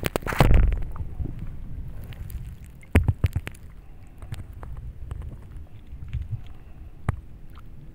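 Wind rumbling on the microphone over shallow water, broken by a few sharp clicks, the loudest about three seconds in and another about seven seconds in.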